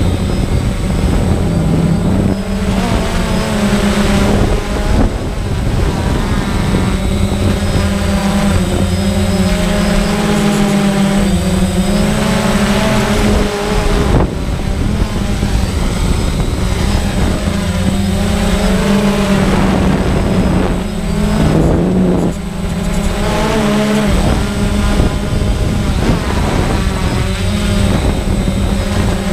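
Quadcopter drone's electric motors and propellers whining, heard from the onboard camera, the pitch rising and falling repeatedly as the throttle changes.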